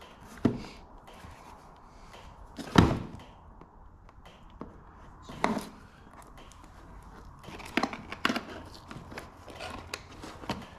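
A parcel being unpacked: a few sharp knocks as the box and parts are handled and set down, the loudest about three seconds in, then a run of lighter clicks and taps, over a faint rustle of packaging.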